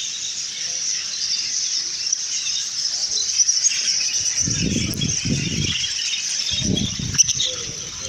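A large flock of crated budgerigars chattering, a continuous dense high-pitched chirping. Two low rumbles come in, around the middle and near the end.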